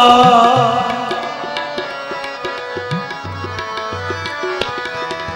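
Kirtan accompaniment without voice: tabla playing a rhythm under sustained harmonium notes. Twice the bass drum (bayan) gives a stroke that slides up in pitch.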